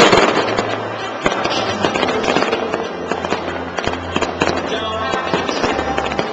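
Fireworks going off: a loud burst right at the start, then a dense run of bangs and crackles, with music and a steady bass line playing underneath.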